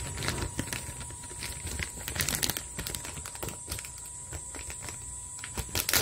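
Cicada song: a steady high-pitched buzz with irregular crackling clicks through it, loudest about two seconds in and near the end.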